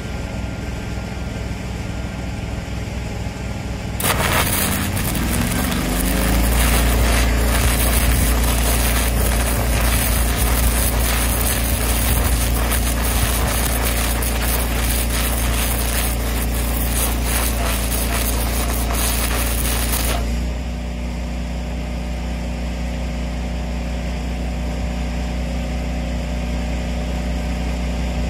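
Electra AAA airless arc gouging rod burning into steel: a loud, harsh, crackling arc starts about four seconds in and breaks off about twenty seconds in, with no compressed-air blast. An engine runs steadily throughout, getting louder and deeper while the arc burns and settling back once it stops.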